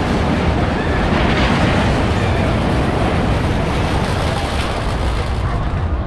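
Traveling steel roller coaster train rumbling along its track, a loud, continuous rumble heavy in the low end. It turns duller near the end.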